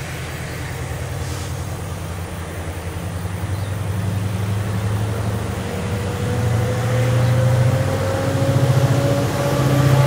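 Two CC 205 diesel-electric locomotives running in tandem at the head of a long coal train, their engine rumble growing steadily louder as they approach. About halfway through, a faint whine appears and slowly rises in pitch.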